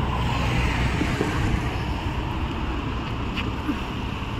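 Road traffic passing on the street: a steady rush of tyre and engine noise with a low rumble, slowly easing off.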